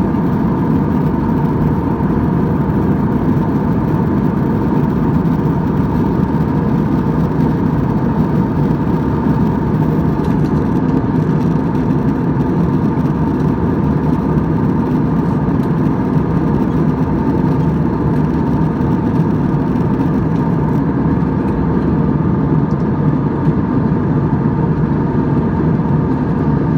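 Airliner jet engines running steadily, heard from inside the passenger cabin: an even rushing drone with a faint steady tone riding on it.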